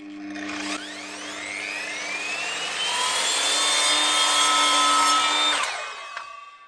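Electric mitre saw spinning up with a rising whine and cutting through MDF picture-frame moulding to square off its end, then switched off and winding down near the end.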